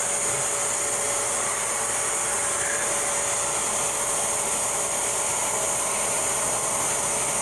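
Steady rushing whir of an electric blower motor forcing air through a holed exhaust system so that the leaks can be felt. It carries a faint steady tone and does not change.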